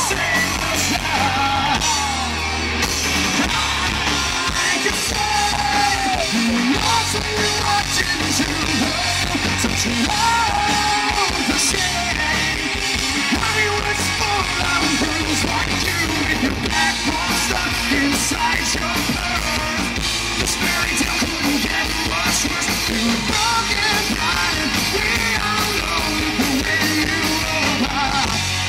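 Amplified live rock band playing: electric guitars, bass and drum kit, with a male lead singer.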